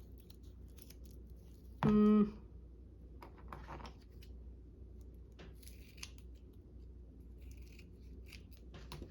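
Scissors cutting paper in short, faint snips with some paper rustling, and a brief hummed "mm" about two seconds in.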